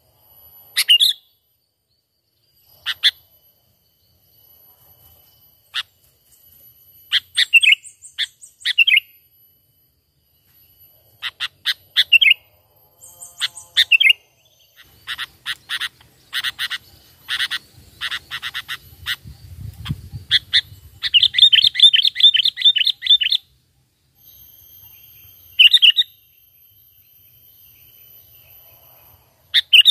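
Sooty-headed bulbul (kutilang) calling: scattered sharp chip notes and short whistled phrases, with a fast rattling trill lasting about two seconds, about two-thirds of the way through.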